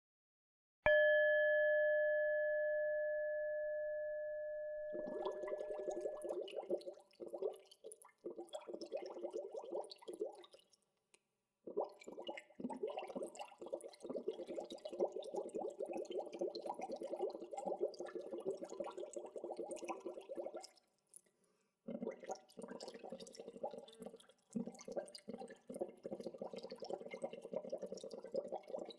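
A bell struck once about a second in, its several tones ringing out and fading over about four seconds. Then gentle natural bubbling water, a dense crackle of small bubbles, with two brief pauses.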